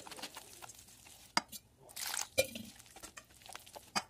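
Wire whisk stirring rice flour and mashed banana into a thick batter in a stainless steel bowl: a scraping, stirring noise with a few sharp clinks of the whisk against the bowl.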